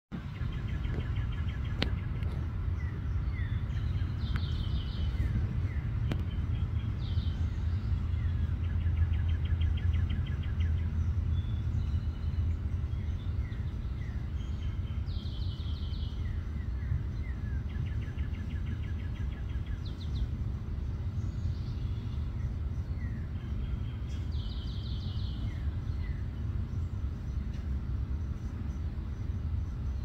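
Birdsong over a steady low rumble: short, fast trills recur every few seconds among scattered chirps. The rumble is the loudest sound and swells a little about a third of the way in.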